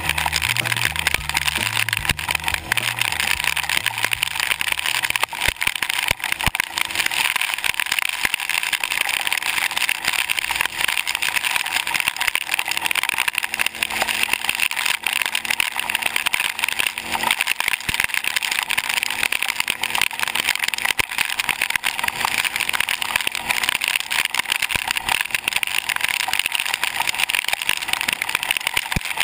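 Kawasaki KFX700 ATV riding steadily at speed on a wet paved road: a dense rush of wind and wet-tyre hiss over its V-twin engine running. A low pulsing sits under it for the first few seconds, then stops.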